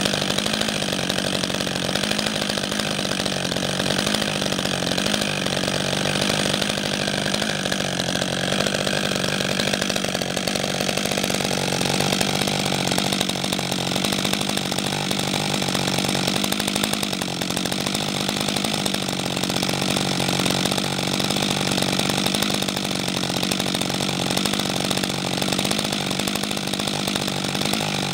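Husqvarna 562 XP chainsaw's two-stroke engine idling steadily, its pitch barely wavering.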